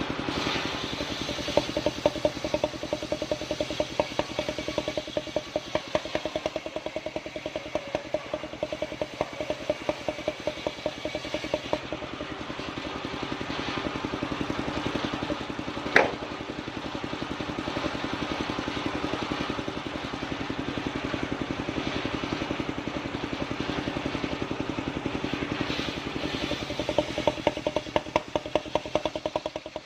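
The engine of a portable circular-saw sawmill running steadily with a fast, even beat, and a single sharp knock about halfway through.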